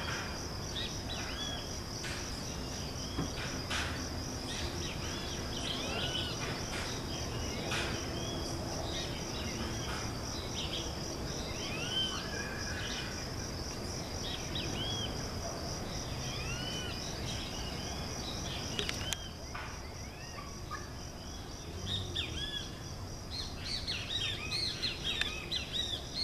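Steady, pulsing insect chorus with many short bird chirps over it, the chirping getting busier near the end.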